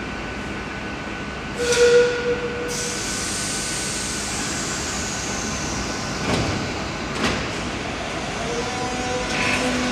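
Madrid Metro train at a platform: a door-closing warning tone sounds for about a second, followed by a sudden hiss of air that slowly falls in pitch, and the doors sliding shut with two knocks. Near the end the train starts to pull away, its motors beginning to whine.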